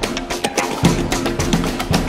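Intro theme music with a steady percussive drum beat, about two strong beats a second, under pitched notes and quick high ticks.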